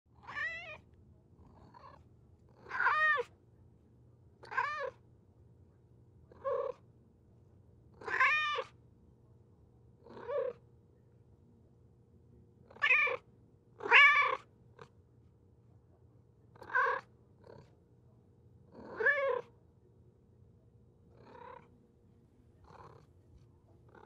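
Domestic cat meowing again and again: about a dozen separate meows, each rising and falling in pitch, some loud and some faint, one to three seconds apart.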